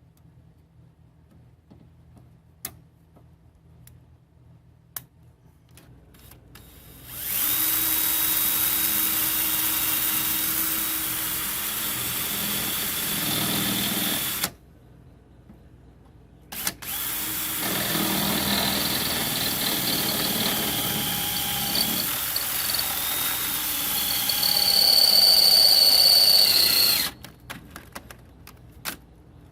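Handheld power tool running under load in two long runs of about seven and ten seconds, with a short pause between, cutting off an old battery cable end. Its whine shifts in pitch as it bites and gets louder and higher near the end of the second run.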